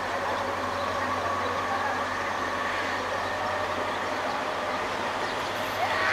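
WDP4D diesel locomotive, with its EMD 16-cylinder two-stroke engine, approaching with its train, giving a steady mix of engine hum and rolling rail noise. A brief louder sound comes in right at the end.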